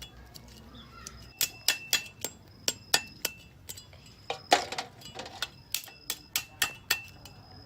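Hard knocks on snail shells while the snails are cleaned, about two a second in an uneven rhythm. Each knock carries a short metallic ring.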